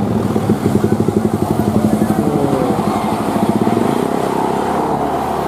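Diesel engine of a coach bus running close by, a deep hum with a fast, even throb.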